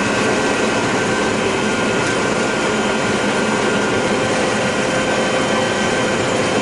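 John Deere 9600 combine running steadily while harvesting corn, heard from inside the cab: an even mechanical drone with a few held whining tones from the machinery and cab fan.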